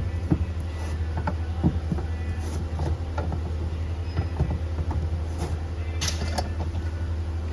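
A steady low mechanical hum, with scattered light clicks and knocks over it and a short hiss about six seconds in.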